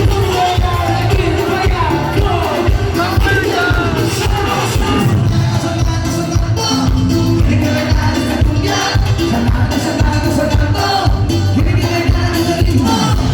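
Live cumbia band playing with a steady bass-and-percussion beat under a gliding melodic lead.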